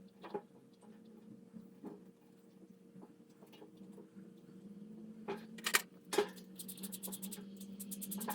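Small clicks, taps and knocks from hand work on parts, over a steady low hum. A few louder knocks come a little past halfway, followed by a fast run of clicks near the end.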